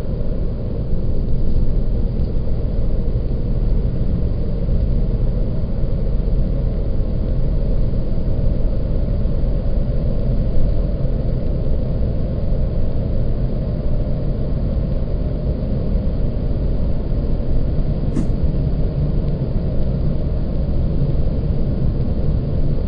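Steady low rumble, heaviest in the deep bass, with one faint click about eighteen seconds in.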